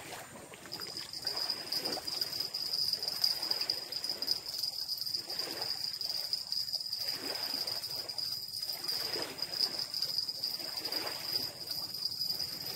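A spinning reel being cranked as a hooked fish is reeled in, with irregular rustling and handling noise. A steady high-pitched tone sets in about a second in and runs on under it.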